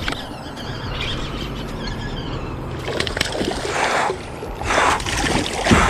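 Water splashing and trickling over a steady rush, with three short splashes about a second apart in the second half.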